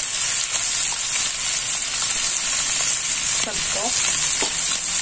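Sliced red and yellow bell peppers and onion sizzling steadily in olive oil in a frying pan.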